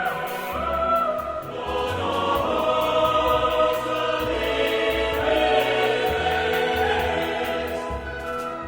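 Choir singing a hymn with instrumental accompaniment: held chords that change every second or so over a low bass line.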